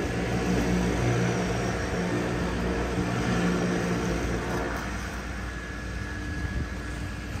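Seaplane's propeller engines running with a steady engine tone over a broad rush of noise, easing off slightly past the middle.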